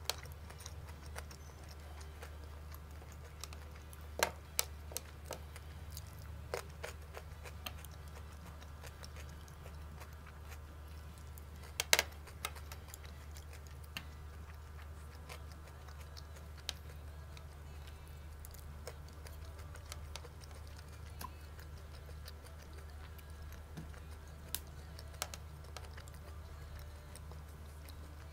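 Eating sounds from a sushi roll being chewed and handled with wooden chopsticks: scattered small clicks and taps, the sharpest about twelve seconds in, over a steady low hum.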